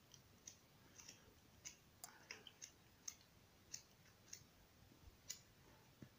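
Faint, scattered clicks and light paper sounds, about one or two a second, as the pages of a paperback colouring book are handled and turned, against near silence.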